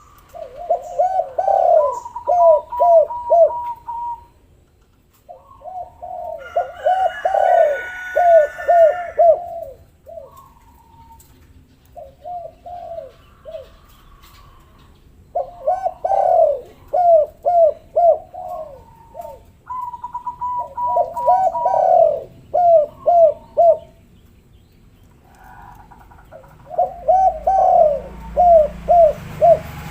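Spotted doves (tekukur/derkuku) cooing in repeated bouts of quick, evenly spaced notes with short pauses between bouts. A different, higher-pitched call sounds briefly about seven to nine seconds in.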